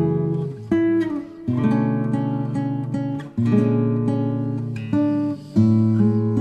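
Background music: strummed acoustic guitar chords, changing every second or two.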